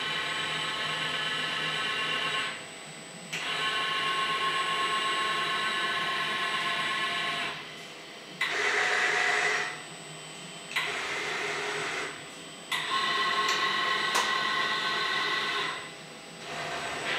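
KUKA industrial robot arm's joint servo drives whining as it moves a 3D laser line sensor between inspection positions. The whine comes in five runs of a few seconds each, with short pauses as the arm stops. The middle run, about halfway through, is a hissier sound than the others.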